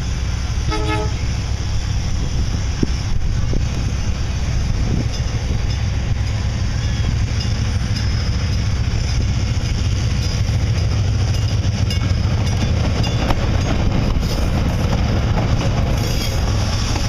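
Diesel-pushed commuter train of bilevel coaches approaching and passing, a steady low rumble that builds as it comes close. A short horn toot sounds about a second in.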